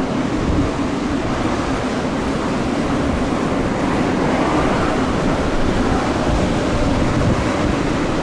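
Strong storm wind buffeting the microphone in a continuous rush, with a steady aircraft engine drone underneath.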